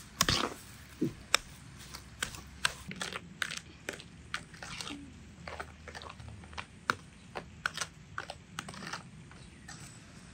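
A metal spoon scraping and clicking against a plastic bowl as it mashes and stirs crumbly cottage cheese (tvorog), in irregular strokes two or three times a second.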